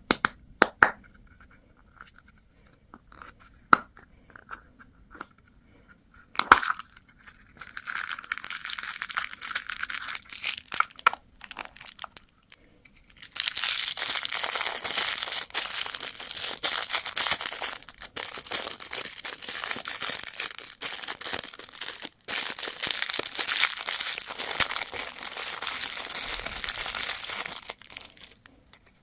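Candy wrappers being torn open and crinkled by hand, in long stretches of dense, high-pitched crinkling. A few sharp clicks from handling come in the first seconds.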